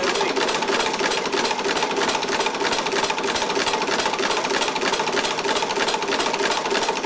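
Homemade two-stage compressed-air engine, converted from a piston air compressor, running on air with a rapid, even clatter over a steady hum. The clatter comes from its heavy valve springs knocking the valves against the cams.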